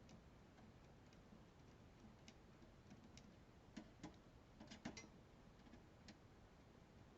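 Near silence with faint, scattered light clicks and taps, most of them bunched about four to five seconds in.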